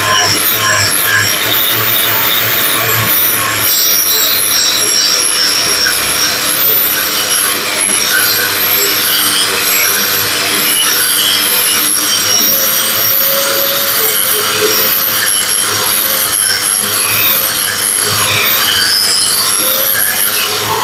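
Caowang CW1336 wall chaser, an 1800 W single-blade machine fitted with a grinding disc, grinding a concrete floor: a steady, loud grinding rasp over the motor's whine.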